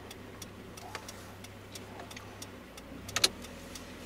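Turn-signal relay ticking steadily about three times a second in a GAZelle truck's cab, over the low, steady hum of the engine. About three seconds in, two sharper clacks stand out as the loudest sounds.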